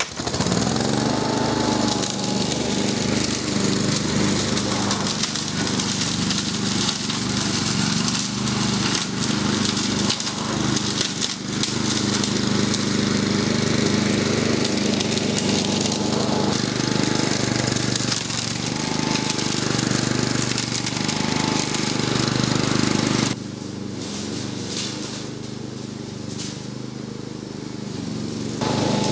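A Flymo XL500 hover mower's 5.5 hp Honda four-stroke petrol engine runs steadily at full speed, settling to speed within the first second, while the mower cuts grass on a slope. About 23 seconds in it becomes quieter for several seconds, then returns to full loudness near the end.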